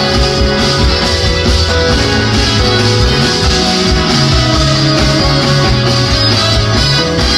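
Jazz-fusion band playing live, loud and dense, in a breakdown section: a stepping bass line under guitar and other instruments.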